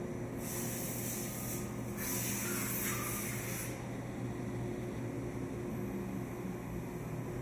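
Steady machinery hum in a machine shop, with a high hiss starting about half a second in and lasting about three seconds, broken briefly partway through.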